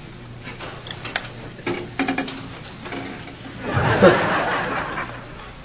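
A man's voice making a few short non-word sounds, then a louder breathy chuckle about four seconds in, over a steady low hum.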